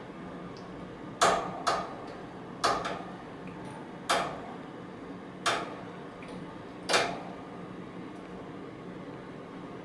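Metal cage key being batted by a cat's paw, clinking against the white wire pet cage six times at uneven intervals, each clink ringing briefly.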